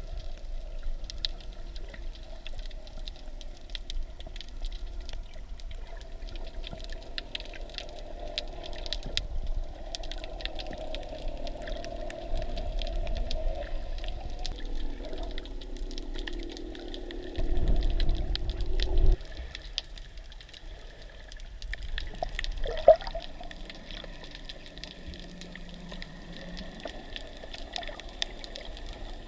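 Underwater sound picked up by a camera held below the surface while snorkelling: a muffled water wash with fine crackling clicks and a faint steady hum. A louder low rush comes about two-thirds of the way in, and a sharp knock follows a few seconds later.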